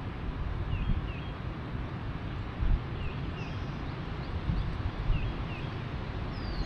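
Wind buffeting the microphone as a steady low rumble, gusting louder briefly twice. Over it a small bird gives short down-slurred chirps in pairs, repeated every couple of seconds.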